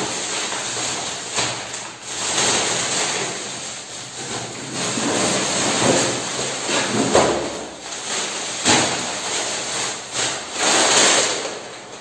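Plastic carrier bag rustling and crinkling as packets are handled and pulled out of it, going on and off, louder and softer by turns.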